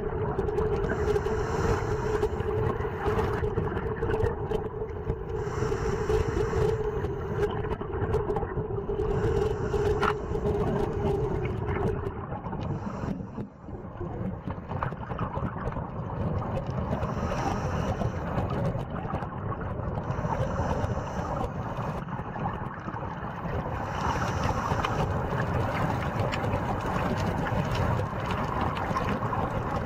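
Underwater ambience from a camera on a scuba dive: a continuous low rumble, with a steady hum that stops about twelve seconds in, and short hissing bursts of exhaled regulator bubbles every four or five seconds.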